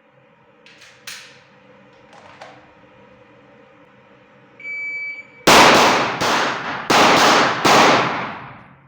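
A shot timer beeps once, then about a second later a pistol fires six shots in two quick groups of three: a double Mozambique drill, two to the body and one to the head on each of two targets.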